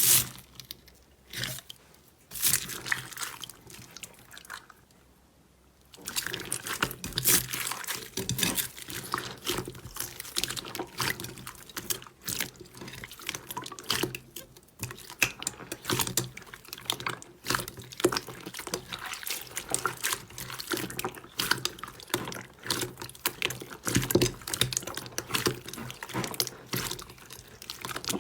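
Slime being squeezed and worked by hand, making wet clicking and squelching sounds. A few separate squelches come in the first seconds, then a dense, continuous crackle of pops from about six seconds in.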